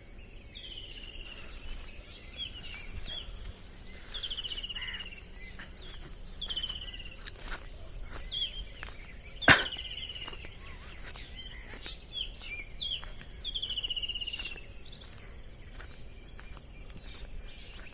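Small songbirds calling again and again with short, high, downward-sliding trilled notes over a steady high insect drone, with a single sharp click about halfway through.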